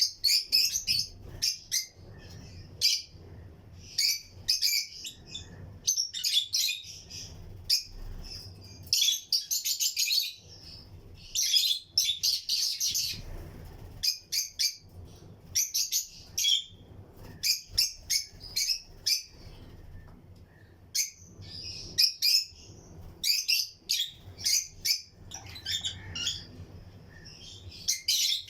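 A colony of lutino lovebirds chirping: shrill, high chirps in quick bursts, with short lulls between.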